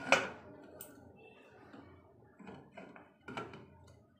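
Aluminium pressure cooker lid clunking shut with one sharp metallic knock, then a few lighter metal clicks and knocks as the lid and its weight are handled.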